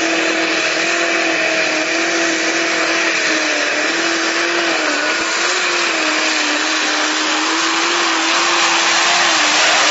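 Modified pulling tractor's engine running flat out under load as it drags the weight sled, a loud steady high-pitched drone that wavers slightly and sags in pitch near the end.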